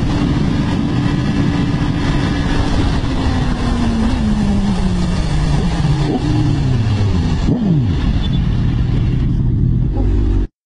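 Sport motorcycle engine at very high speed under heavy wind rush, its pitch falling steadily as the rider rolls off the throttle and the bike slows from around 299 km/h. The sound cuts off suddenly near the end.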